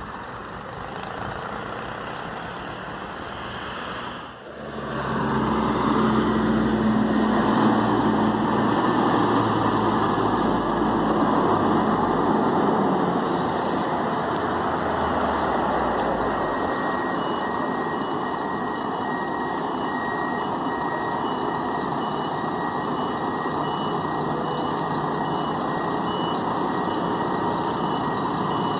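Intercity coach's diesel engine running loudly as the bus maneuvers at low speed, its low rumble easing after about the middle. From about two-thirds of the way in, its reversing alarm beeps steadily in two alternating pitches, the coach backing up.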